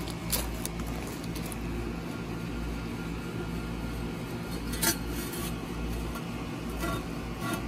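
Steel conduit pole being set into a narrow hole in gravel-covered ground: a few light clinks and one sharper knock about five seconds in, over a steady low rumble.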